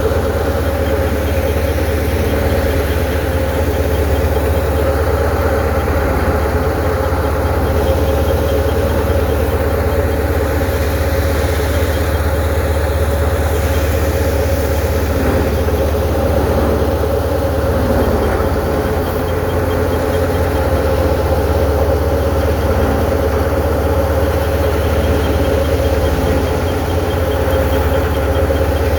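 Tractor's diesel engine running steadily with a low rumble, not revving up or down.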